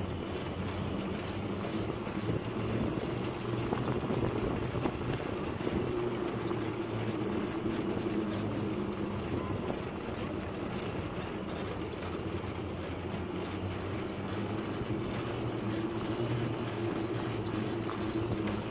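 Motorcycle engine of a Philippine tricycle (a motorcycle with sidecar) running steadily as it drives along, with road and wind noise.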